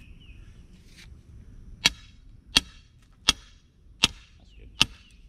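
Sledgehammer driving a metal stake into the ground: five sharp blows with a metallic ring, about three quarters of a second apart, starting about two seconds in.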